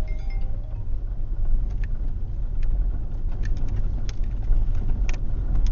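Ford car driving over a rough dirt track, heard from inside: a steady low rumble of engine and road, with a few sharp knocks and rattles from the bumps.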